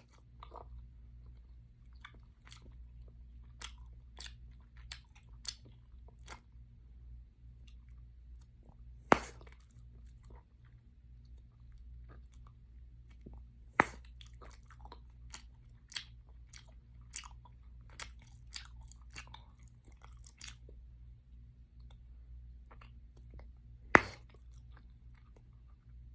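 Close-miked gum chewing: irregular small wet clicks and smacks, with three much louder sharp gum pops spread through, over a faint steady low hum.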